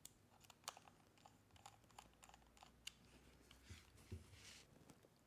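Faint, scattered small clicks and taps from a screwdriver and hands handling a 1911 pistol as its grip screws are fitted into the laser grip panels.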